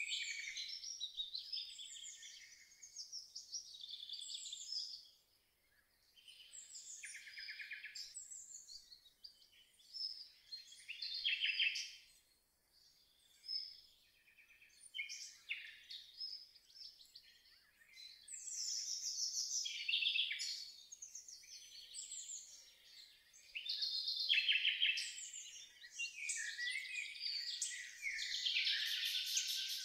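Songbirds singing, phrase after phrase of chirps and rapid trills, several songs overlapping, busiest near the end.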